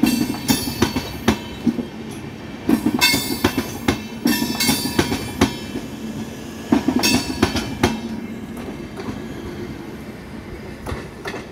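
Passenger train of LHB coaches rolling past. The wheels clatter over rail joints with bursts of metallic wheel squeal, about a second in, from about three to five seconds, and again around seven seconds. After that the sound fades as the last coach, a luggage-brake-generator car, rolls away.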